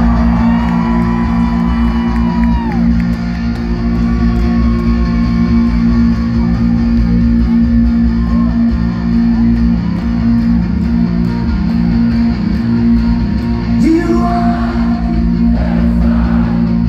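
Live rock band playing a song intro at full volume: electric guitar, bass guitar and drums, with a steady, regular drumbeat.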